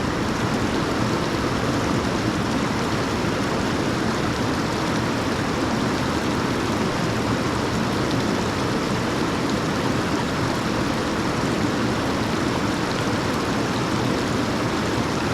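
Steady, unbroken rush of flowing stream water.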